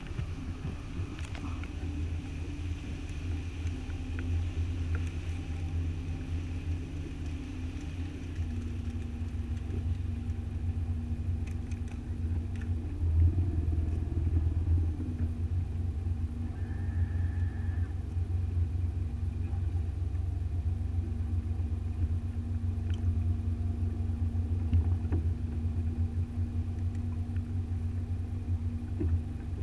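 A motorboat's engine running steadily, a low hum with a held tone that drops slightly in pitch about eight seconds in.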